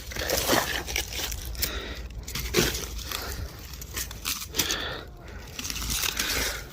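Irregular crunching and rustling of footsteps and brushing through forest undergrowth on a steep slope.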